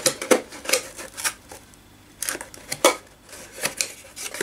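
Cardboard being handled: irregular scrapes, taps and knocks as a small box is slid and worked out of a larger corrugated shipping box, with a quieter pause about halfway through.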